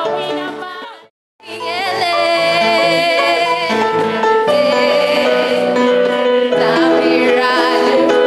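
Music with a singing voice; it cuts out completely for a moment about a second in, then starts again.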